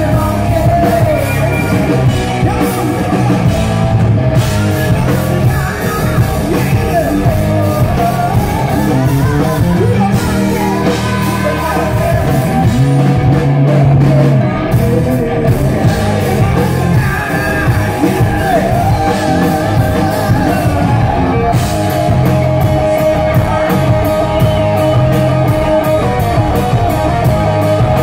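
Live rock band playing with lead singing: electric guitars, drum kit and vocals, heard from the audience.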